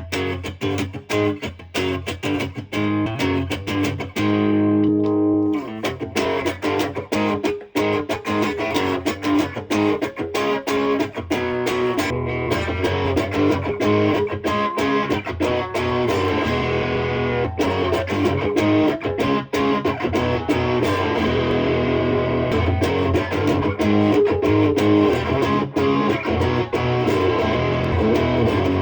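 Electric guitar played through a 1988 ProCo RAT2 distortion pedal with the LM308N op-amp chip, as a pedal demo. It opens with ringing chords that die away about five seconds in, then continuous picked notes and chords.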